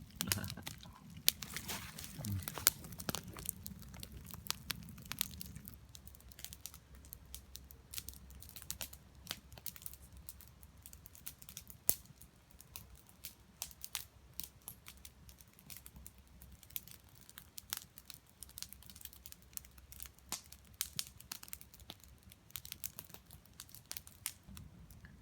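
Crinkling and tearing of snack packaging being opened and handled, with scattered sharp clicks and crackles throughout. A low hum runs under it for the first few seconds.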